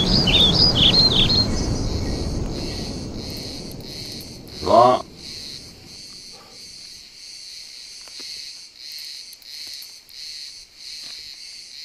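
Crickets chirping in an even, pulsing rhythm, about two to three chirps a second. Under them, a low rumble fades away over the first few seconds, and a brief pitched call rises and falls about five seconds in.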